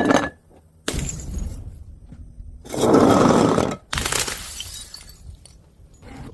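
Glass bottles smashing and shattering in a run of separate breaks: one at the start, another about a second in, a longer, louder crash near three seconds, and another just before four seconds, each trailing off as the pieces settle.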